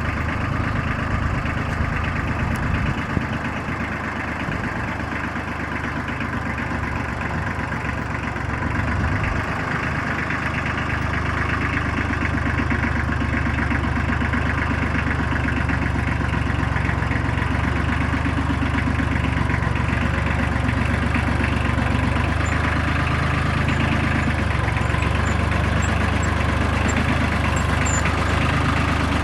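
Tractor engine running steadily with a low hum, growing a little louder about ten seconds in.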